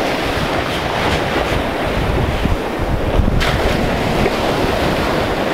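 Surf breaking and washing up the beach, with heavy wind buffeting the microphone.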